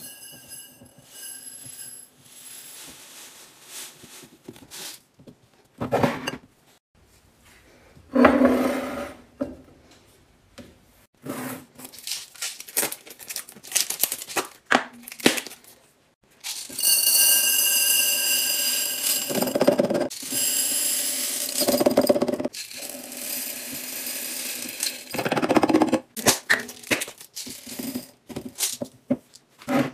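Groceries and containers being handled and restocked: a series of clicks, knocks and packaging rustles, with a longer, louder rattling stretch in the second half.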